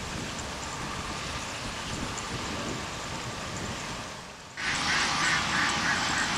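Steady outdoor background noise, then an abrupt jump about four and a half seconds in to louder background with distant voices.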